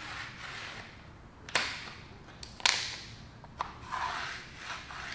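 Pencil scratching along a plywood sheet as a line is drawn against a wooden batten, in short strokes broken by a few sharp clicks, the loudest near the middle.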